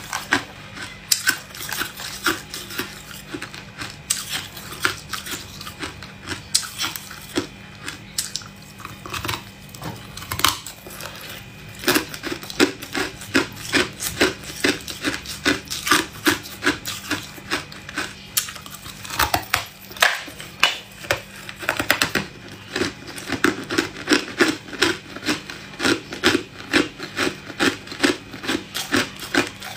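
Hard ice being bitten and chewed, close to the microphone: sharp crunches, scattered at first, then about halfway through settling into steady chewing at about two to three crunches a second.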